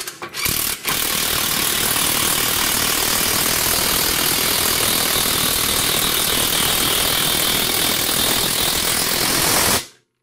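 Cordless power tool on a long extension driving down the fuel tank strap bolt: a short burst, then a loud steady run of about nine seconds that cuts off suddenly near the end.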